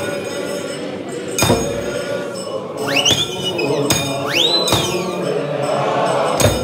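A large men's choir singing a Xhosa hymn in full harmony, with a few loud beats, about a second or two apart, from a djembe-style hand drum. Near the middle come two high whistles that rise and then fall in pitch.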